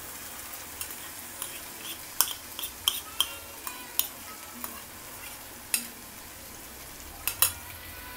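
Flaked fish frying and being stirred in a coated wok of spiced onion-tomato masala: a steady sizzle of hot oil, broken by sharp clinks and scrapes of the metal spatula against the pan, some with a brief metallic ring.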